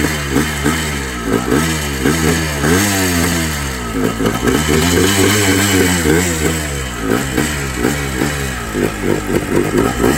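Yamaha Blaster's two-stroke single-cylinder engine running and being revved in repeated throttle blips, with a longer rev around the middle and quick, closely spaced blips near the end.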